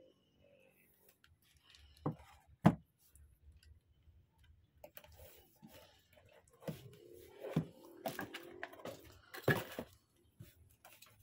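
Guitar effects pedals and their cardboard boxes being handled: scattered knocks and clicks, two sharp ones close together a couple of seconds in and more towards the end, over soft rustling.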